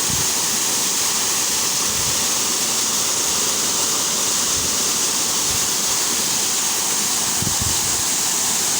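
Waterfall: water falling and splashing in a steady, loud rush with no change in level.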